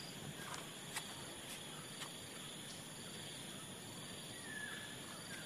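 Steady high-pitched chirring of crickets and other insects at dusk. Light footsteps click about twice a second in the first two seconds, and a brief faint whistle comes near the end.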